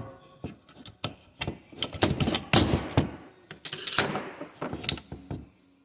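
Plastic clicking and knocking, irregular and fairly rapid, with a few short scrapes, as a temperature sensor is worked out of the plastic housing of a GM coolant flow control valve.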